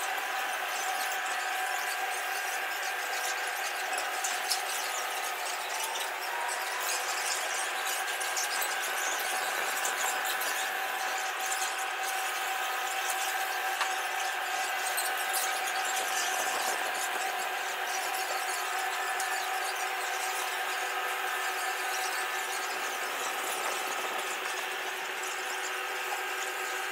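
Steady mechanical whine with several constant tones over a hiss, from the motor and gearing of the museum's revolving viewing platform as it turns slowly past the panoramic mural.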